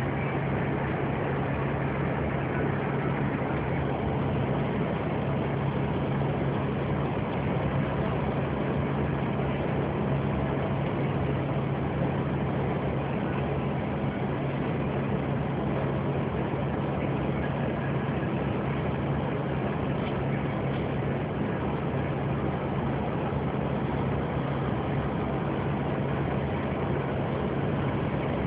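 Steady engine drone and road noise heard from inside a vehicle cab while driving at an even speed. A constant low hum runs under a rushing noise, with no change in pitch or level.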